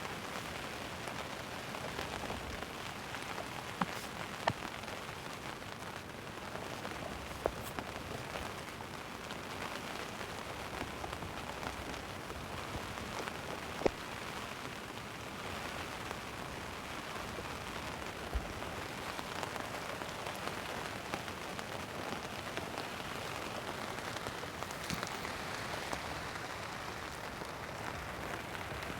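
Heavy rain pouring steadily, with a few sharper single drop impacts standing out now and then.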